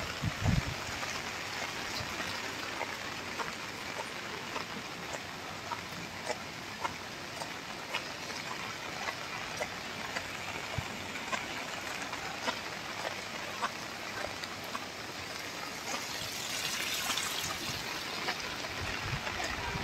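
Steady rain falling on wet pavement, with scattered drops ticking close by. A low thump comes just after the start and again near the end, and the rain hiss swells briefly late on.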